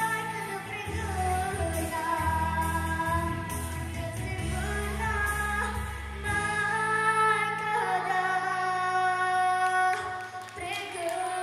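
A young girl sings solo into a microphone over pop-style backing music, holding long notes. The low bass of the accompaniment drops out about six seconds in.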